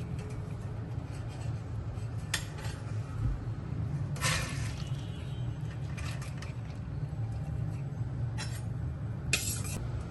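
Kitchen vessels and a strainer clinking and rattling while soaked urad dal, rice and fenugreek seeds are drained. There are a few short bursts, the longest about four seconds in, over a steady low hum.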